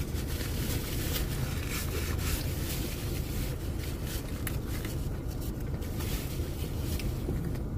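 Steady low rumble inside a car cabin, with scattered faint clicks and rustles from chewing a sandwich and handling its paper wrapper.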